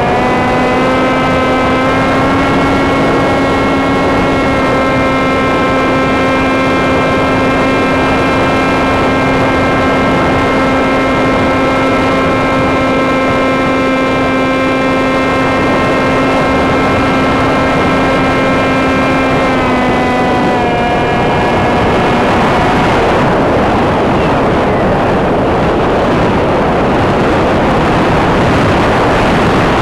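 Sky Surfer RC glider's electric motor and propeller whining at a steady pitch over loud wind rushing past the plane. About twenty seconds in, the whine drops in pitch and fades out as the throttle comes back, leaving only the wind noise.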